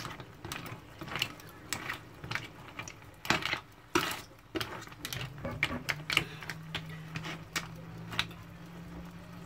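Mussel shells clicking and clacking against each other and the pan as they are stirred with a metal spoon, in irregular sharp knocks. A low steady hum comes in about halfway.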